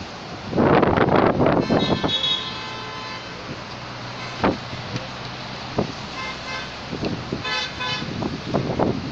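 Wind buffeting the microphone, with a vehicle horn sounding for about a second near the start and short toots again about two-thirds of the way through.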